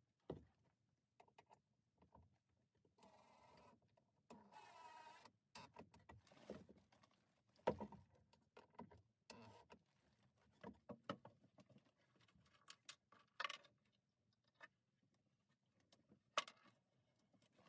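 Faint, scattered knocks, taps and clicks of items being handled and set into wooden storage bins, with two short rustles about three to five seconds in.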